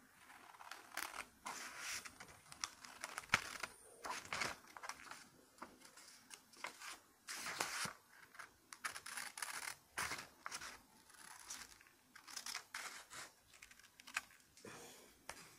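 Scissors cutting through a sheet of red paper close to the microphone: an uneven run of crisp snips, with the paper rustling and crinkling between cuts.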